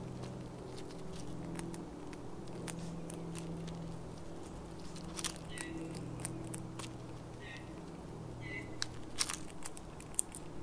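Eastern gray squirrel chewing birdseed and nuts: a scatter of sharp crunching clicks, busiest in the second half, over a steady low background hum.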